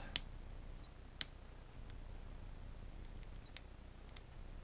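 A handful of small sharp clicks, irregularly spaced, from a precision screwdriver tip and fingers working the plastic flame piece and its wire gimbal pivot out of its clip. The loudest clicks come about a second in and again about three and a half seconds in.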